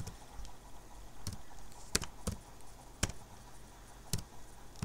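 Slow, uneven typing on a computer keyboard: about six separate key clicks, spaced half a second to a second apart.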